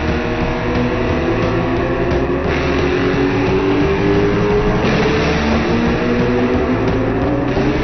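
Rock music with guitar over a motorcycle engine. The engine's pitch dips slightly, then climbs steadily from about halfway through, as the bike accelerates.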